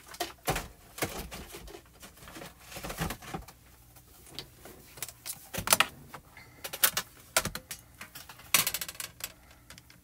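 Art supplies being handled on a craft desk: a case of chalk pencils picked up and opened, making a run of sharp clicks and clatter, bunched about six seconds in and again as a rattling cluster near the end.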